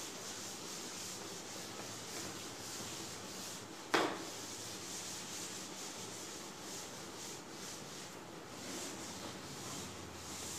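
A chalkboard being wiped clean with a duster: scratchy rubbing in repeated strokes across the board. A single sharp knock comes about four seconds in.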